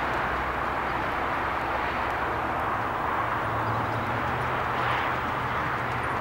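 Steady rushing background noise with a low hum, and under it the faint, muffled hoofbeats of a horse cantering on arena sand.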